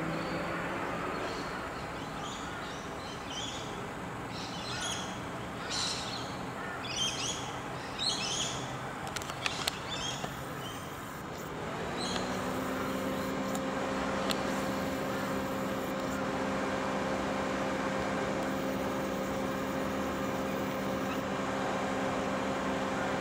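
Small birds chirping in short high calls through the first half, over a steady outdoor background. About halfway through, a steady low engine hum sets in and runs on.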